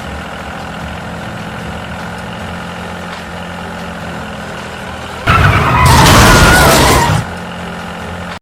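A steady mechanical hum, with a loud rushing burst about five seconds in that lasts about two seconds.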